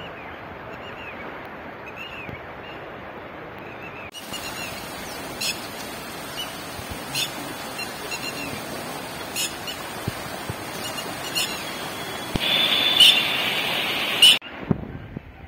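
Steady outdoor noise with short bird chirps. After about four seconds come sharp clicks every couple of seconds, then a louder high hiss for about two seconds near the end.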